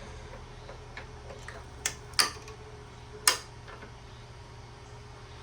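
A few sharp metallic clicks, three of them between about two and three and a half seconds in, as a brass furnace pilot burner is fitted into a bench vise, over a steady low hum.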